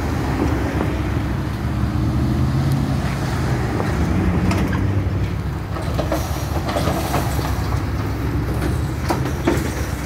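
Cars and pickup trucks driving slowly past one after another, a steady low engine rumble, with a few sharp clicks in the last few seconds.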